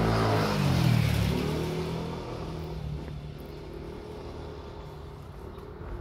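Motor scooter riding past close by, its engine note dropping in pitch as it goes by about a second in, then fading away.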